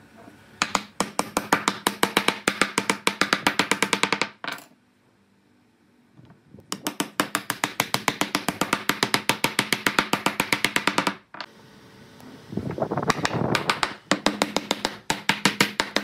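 Wooden mallet tapping rapidly on dark wood petal inlays, driving them into glued recesses in a round tabletop. Quick, even strikes, several a second, in three runs with short pauses between.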